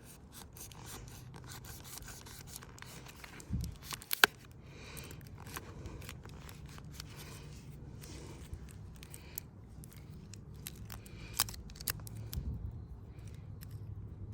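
Small snipping and rubbing sounds of a fire-starter package being cut and handled, with a sharper click about four seconds in, over a low steady hum.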